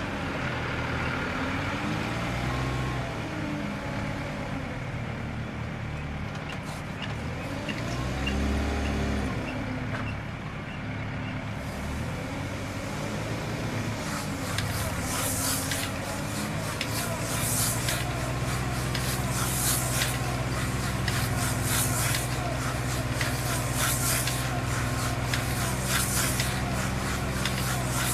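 Heavy machine's diesel engine running, its revs rising and falling twice in the first ten seconds, then settling into a steadier, deeper note. From about halfway on, it is joined by frequent short hisses and clatters.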